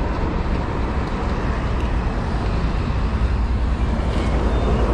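Steady noise of a moving vehicle on the road, with a heavy low wind rumble on the microphone.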